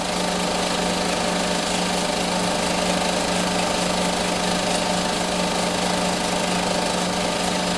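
Snowmobile's two-stroke engine running at a steady speed, its level and pitch unchanging.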